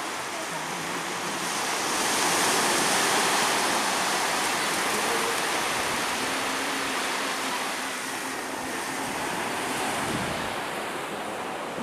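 Sea waves washing onto a beach: a steady rush of surf that swells about two seconds in and eases off later on.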